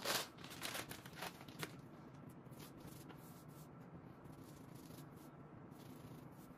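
Fingers brushing and rubbing fine wood dust over a glued crack in a wooden tabletop, a dry rustling and scratching. One loud brushing stroke at the start and a few short scratchy strokes in the first second and a half, then faint rubbing.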